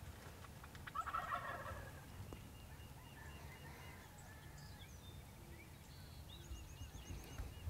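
Wild turkeys gobbling faintly in the distance from the roost. The clearest gobble comes about a second in, and fainter calls follow.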